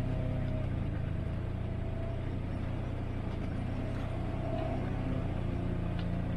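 Off-road 4x4's engine running steadily at low speed as it crawls along a dirt trail, a low even drone.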